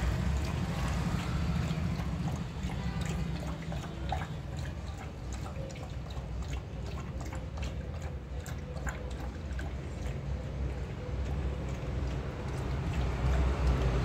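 Black Labrador retriever lapping and eating from a metal bowl: a run of short wet clicks and slurps, thickest in the middle, over a steady low rumble.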